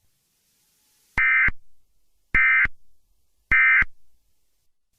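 Emergency Alert System end-of-message signal: three short bursts of SAME digital data tones, each about a third of a second long and about a second apart, closing the tornado warning alert.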